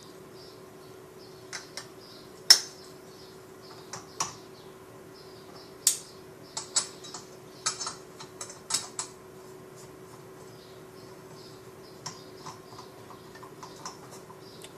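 Sharp clicks and knocks of JetBoil stove parts being handled and fitted together: gas canister, burner and cup. The clicks come in irregular clusters, most of them in the first nine seconds, with the loudest knock about two and a half seconds in.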